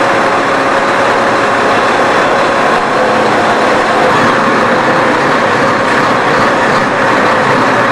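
Large Hyster forklift's engine running steadily, with a steady whine over the engine noise.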